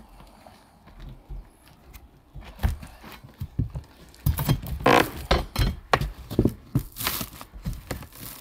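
Steel crowbar prying up and scraping at the old flat-roof covering at the roof edge. Scattered knocks start about two and a half seconds in, and dense knocking and scraping follow from about four seconds in.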